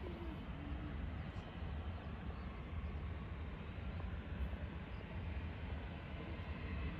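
Steady distant jet-engine noise from a Boeing 737 airliner taxiing at low power, over a constant low rumble.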